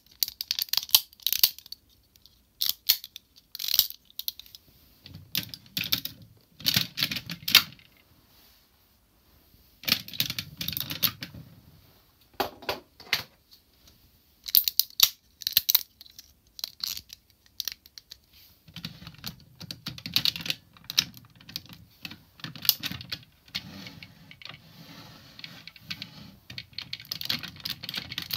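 Hard plastic parts of a Zyuohger combining robot toy being handled and fitted together: clusters of sharp clicks and clacks as pieces snap and lock into place, with rattling and rubbing between them and a few short pauses.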